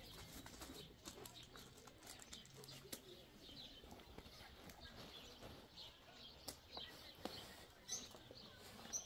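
Faint chirping of small birds, many short high chirps scattered throughout, with a few brief sharp clicks in the second half.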